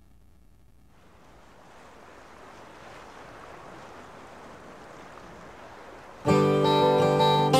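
A soft, even rushing noise fades up over the first few seconds, then acoustic guitar music starts suddenly about six seconds in, with plucked and strummed strings.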